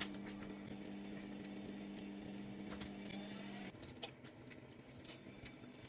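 A steady low electrical or motor hum that cuts off suddenly a little over halfway through, with scattered light clicks and taps of kitchen handling.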